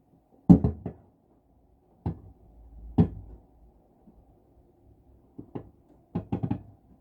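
Wind-blown tree branches knocking against a frosted skylight in irregular clusters of sharp knocks: a quick run of three or four about half a second in, single knocks around two and three seconds in, a pair about five and a half seconds in, and another quick run of four near the end.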